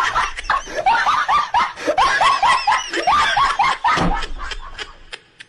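Meme laughing sound effect: a fast run of short 'ha' calls, each rising then falling in pitch, about four a second, dying away about four seconds in.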